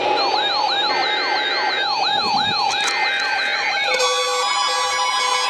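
Emergency alert attention signal announcing a severe thunderstorm warning: a siren-like warble of rising sweeps, a few each second, over a steady tone. About four seconds in it changes to a chiming pattern of repeated short beeps.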